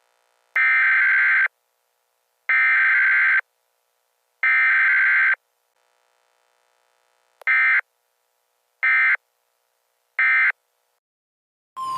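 Emergency Alert System SAME data bursts from a weather radio broadcast: three warbling digital header bursts about a second each, then three short end-of-message bursts. A steady tone starts right at the end.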